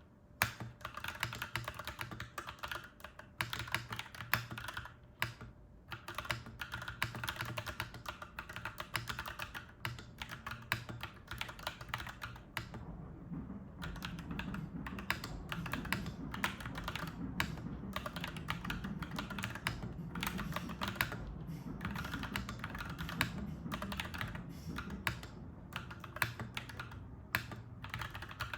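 Fast, continuous typing on a clacky mechanical keyboard, with a brief pause about halfway through. A low rumble joins underneath after the pause.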